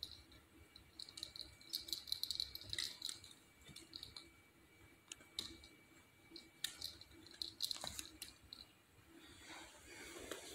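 Faint scattered clicks and light rattles: a small Chorkie dog's claws ticking on a hardwood floor as it noses around a fabric toy bin. A soft rustle comes in near the end.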